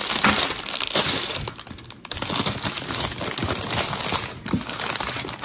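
Clear plastic bag of LEGO bricks crinkling and crackling as hands handle it and pull it open, with many short clicks.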